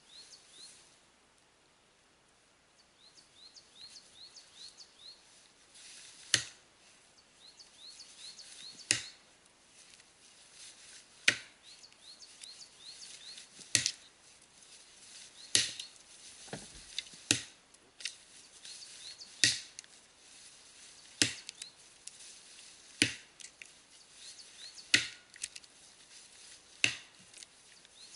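Axe chopping into the trunk of a standing tree: about a dozen sharp single strikes, roughly one every two seconds, beginning about six seconds in.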